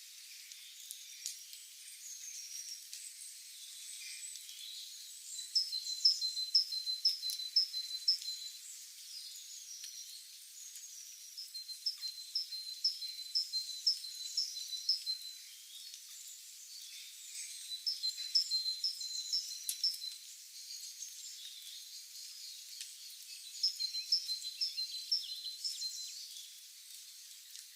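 Birdsong: a songbird repeats a phrase of quick, high notes, about seven or eight to a phrase, four times, roughly every six seconds. Softer chirps from other birds and a faint high hiss fill the gaps.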